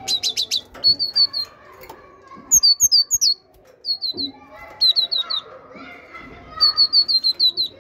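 Great tit singing: a run of sharp, high, repeated notes, a pause, then another run, about six runs in all. One run near the middle is made of two-note phrases that drop in pitch.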